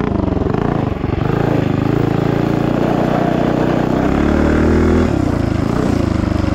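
Predator 212-based 223cc stroker single-cylinder engine on a minibike under throttle, its pitch climbing for several seconds. About five seconds in it drops sharply as the throttle is closed, then picks up again.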